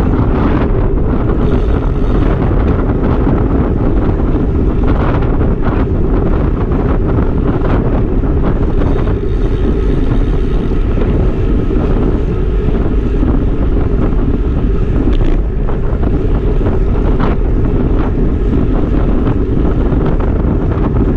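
Heavy wind buffeting the handlebar camera's microphone on a road bike riding fast into a headwind, a dense steady rumble with a few light clicks scattered through.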